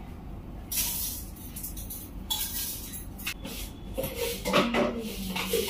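Dry lentils poured into a metal pressure cooker with a rushing rattle, then a few clinks and knocks as containers are handled.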